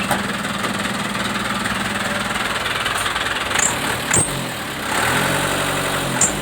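Mitsubishi Canter truck's diesel engine through an aftermarket exhaust, idling steadily, then blipped on the throttle twice about three and a half to four seconds in. It follows with a longer rev that rises and falls, and a further quick blip near the end.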